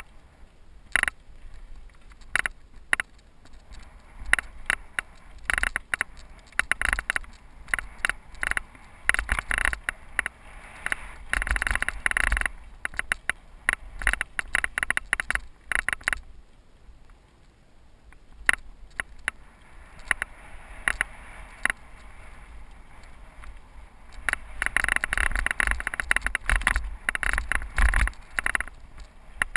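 Cyclocross bike rolling down a rough gravel trail, the bike and its handlebar-mounted camera rattling and clattering over the bumps. The clatter is heaviest about a third of the way in and again near the end, with a quieter stretch just past the middle.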